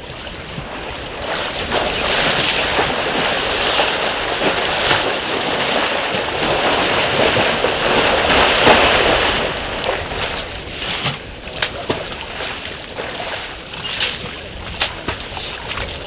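African bush elephants splashing and wading in a waterhole: a steady wash of splashing water that builds over the first couple of seconds and eases off about ten seconds in, followed by scattered single splashes and drips.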